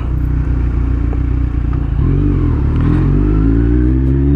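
Kawasaki Z1000 R's inline-four motorcycle engine running under way, then accelerating from about three seconds in, its pitch rising steadily.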